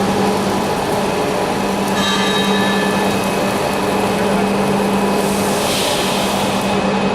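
Loud steady industrial machine noise: a constant low hum under a dense hiss. A brief higher whine comes about two seconds in, and a stronger burst of hiss comes around six seconds.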